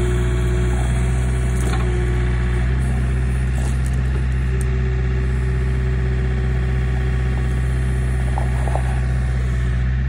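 John Deere backhoe's diesel engine running at a steady, even speed, a constant low drone with no change in pitch.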